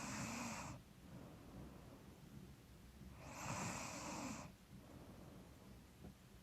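A sleeping woman's slow, heavy breathing with soft snoring. A breath fades out just after the start and another comes about three seconds in, lasting about a second. The uploader puts the snoring down to being a little stuffy.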